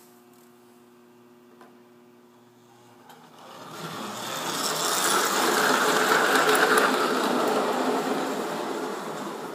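Lionel 1911 standard gauge electric locomotive, its rebuilt motor running, rattling along tinplate track with its train as it passes close by: a low steady hum at first, then a dense mechanical rattle that swells a few seconds in and fades near the end.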